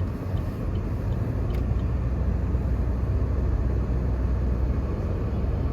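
Steady low rumble of a car driving, heard from inside the cabin; a deeper drone sets in about a second and a half in.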